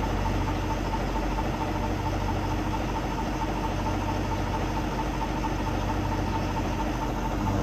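Vacuum tanker truck running steadily while it sucks sewage out of a septic tank through its hose: an even engine-and-pump drone with a constant hum.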